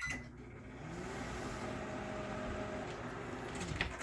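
Microwave oven running, its fan and magnetron humming steadily as it heats a bowl of sugar and corn syrup for hard candy, with the motor tone rising at the start and falling away near the end. A sharp click near the end.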